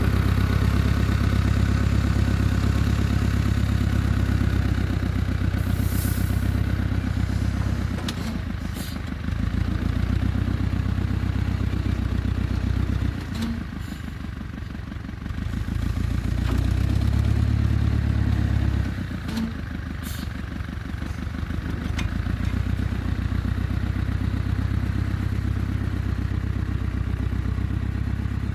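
Small tractor's engine running as it pulls a plough through garden soil, its level dropping and coming back up a few times, with a few brief knocks.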